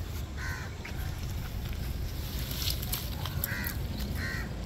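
A crow cawing: three short, harsh calls, one about half a second in and two close together near the end, over a steady low rumble.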